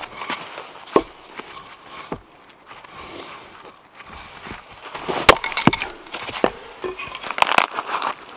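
Dead wooden branches snapping as they are broken by hand: a sharp crack about a second in, a louder pair of cracks just past the middle, and smaller cracks and scraping of wood near the end.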